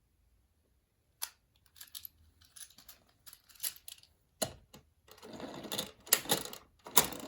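Irregular clicks and clatters of small plastic toy cars being handled and knocked together, growing busier in the second half.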